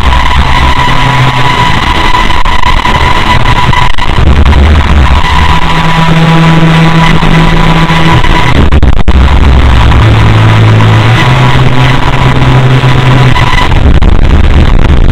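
Very loud, heavily distorted meme music: held bass notes that change every second or two under a dense harsh wash, with a steady high tone through the first half.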